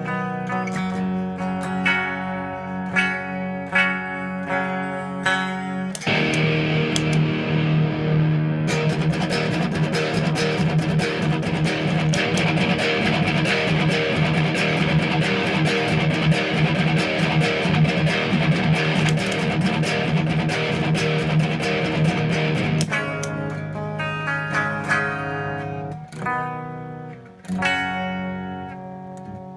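Electric guitar played through a Marshall JCM 2000 TSL 60 tube amp: separate clean picked notes, then about six seconds in a switch to a thick distorted overdrive sound that carries on until about three-quarters through, then back to clean notes.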